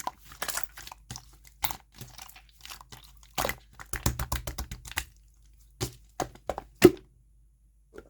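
Slime squeezed and poked by hand, giving irregular crackling clicks and pops, with a quick run of them about four to five seconds in and a lull near the end.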